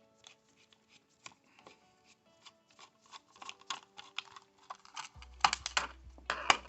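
Small plastic clicks and snaps of a car headlight dimmer (multifunction) switch housing being worked apart by hand, sparse at first and growing louder and quicker in the last second and a half.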